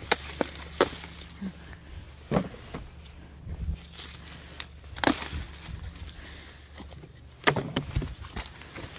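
Bell pepper picking: several sharp snaps and knocks, spread out with a cluster near the end, as peppers are pulled from the plants and dropped into a basket.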